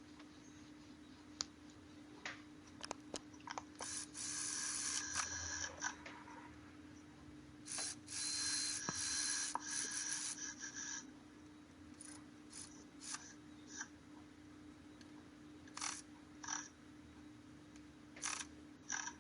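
Hand tools working on a car's rear brake caliper during a brake pad change: scattered metal clicks, with two longer stretches of ratcheting or scraping about four and eight seconds in. A steady low hum runs underneath.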